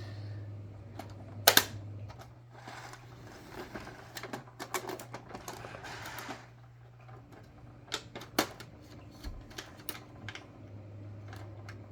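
Hard plastic parts of a toy corn chopper being handled: scattered sharp clicks and knocks, the loudest about a second and a half in, with a stretch of rustling in the middle, over a low steady hum.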